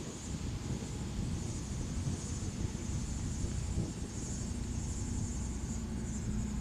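Steady low rumble of a long freight grain train rolling past, with crickets chirping in a high, pulsing drone over it.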